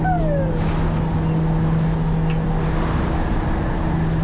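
Skyvan's twin turboprop engines droning with a steady low hum, mixed with wind rushing through the open rear ramp door in flight. A short falling shout is heard right at the start.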